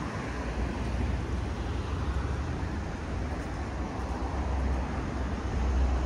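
Steady road traffic noise on a city street, heaviest in the deep low end.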